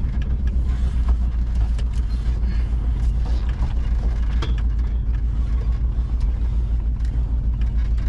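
Volkswagen Kombi van's engine running in a steady low rumble as the van reverses slowly along a rough dirt track, with scattered knocks and rattles through it.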